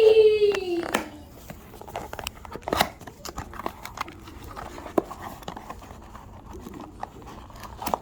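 A high, held voice-like note falls in pitch and fades out within the first second. After that come scattered clicks and soft rustling from small parts and plastic packaging bags being handled and sorted through.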